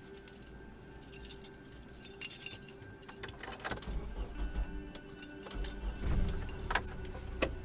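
Loose metal jangling and rattling inside the cabin of a 1989 Mitsubishi Pajero NG driven over rocky ground, in uneven bursts with the loudest about two seconds in, over a low steady engine rumble.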